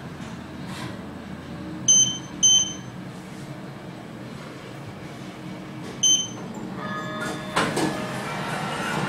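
Three short, high electronic beeps from the Schindler 3300 AP elevator's touch-style car operating panel, two close together about two seconds in and a third about six seconds in, over the steady low hum of the elevator car. A louder rush of noise builds near the end.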